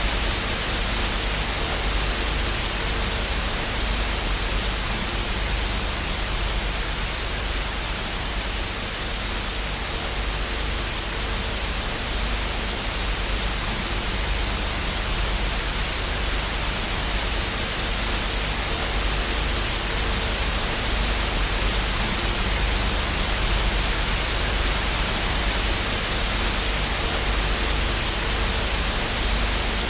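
Analogue television static: a steady loud hiss of white noise, as from a TV tuned to no signal, with a faint low hum beneath.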